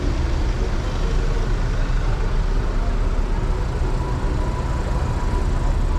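Street traffic: a queue of cars and vans idling and creeping along a narrow street, making a steady, low engine rumble.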